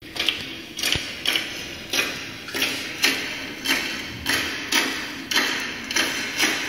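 Background music: a guitar strummed in a steady rhythm, a little under two strums a second, each chord ringing away before the next.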